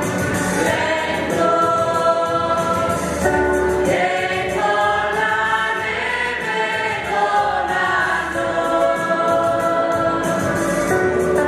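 Mixed polyphonic choir of men's and women's voices singing together in harmony, moving through a series of long held chords.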